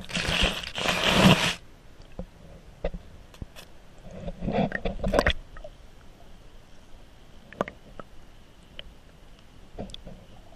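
Scraping and rushing noise heard underwater through a GoPro's waterproof housing as it brushes through river weeds, in two bursts: one lasting about a second and a half at the start and another about four and a half seconds in. Scattered sharp clicks and knocks fall between them.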